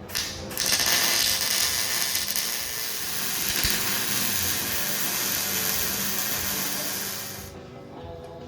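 Welding bolts onto a steel bracket so they act as studs: a steady hiss of welding noise that runs for about seven seconds, then stops.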